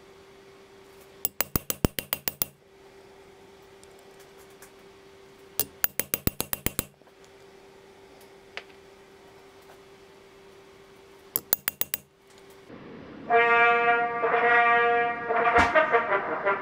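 Small hammer tapping a steel letter punch into a copper strip on an anvil, in three quick runs of strikes at about seven a second. In the last few seconds a smartphone ringtone melody plays through a brass horn used as a passive amplifier, sounding like a brass instrument.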